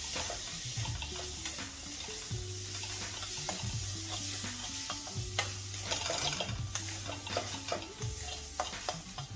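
Pav bhaji masala (onion, capsicum and tomato paste with ground spices) frying in oil in a pan while being stirred: a steady sizzle with occasional clicks and scrapes of the spoon against the pan, as the spices are roasted into the mixture. Soft background music plays underneath.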